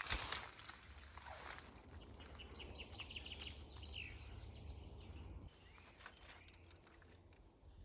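A small songbird chirping: a quick run of high notes about two and a half seconds in, ending in a falling note, over a low steady rumble that stops about five and a half seconds in. A brief rustle opens it.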